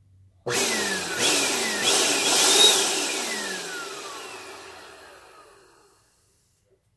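Bissell PowerForce upright vacuum's motor switched on, running loudly for about two seconds, then switched off and winding down with a falling whine that fades out over about three seconds. This is a power-on test after a power cord repair, and the motor runs without its post-motor filter fitted.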